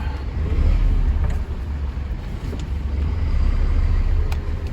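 Truck engine running, heard from inside the cab: a steady low rumble that swells about a second in and again around three to four seconds in.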